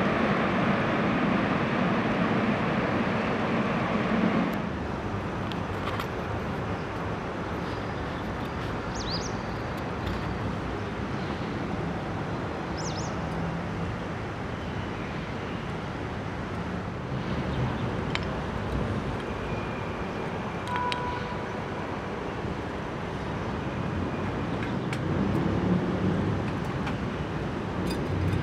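Steady outdoor background noise like distant road traffic, louder for the first few seconds. Then a wood fire burns in a small tin-can wood-gas stove, with scattered faint crackles. A bird chirps twice.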